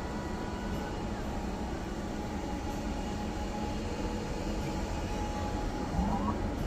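Casino floor ambience: a steady low rumble and din with faint electronic slot-machine tones held over it, and a few short rising chirps near the end.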